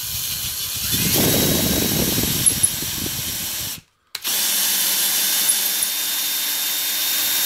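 Cordless drill driving an M10 tap into the centre hole of a Minsk 125's aluminium generator rotor, cutting a thread. The drill runs in two stretches with a brief stop about four seconds in. The first stretch is rougher as the tap bites, and the second runs more evenly.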